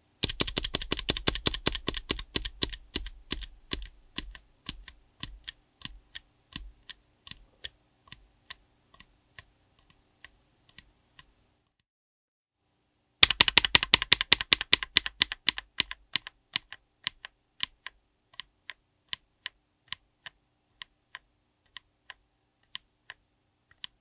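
Akko V3 Cream Black Pro linear mechanical switch pressed over and over by a finger on an FR4 plate, first bare and then with a keycap fitted. Each run starts with rapid clacks that slow to single presses about a second apart. A short silent gap about halfway separates the two runs.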